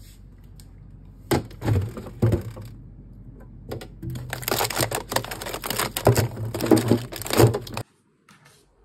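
Plastic-wrapped frozen ice-cream bars and cones being rummaged through in a freezer drawer: crinkling wrappers and clattering packs in two bursts, the second longer, stopping abruptly near the end.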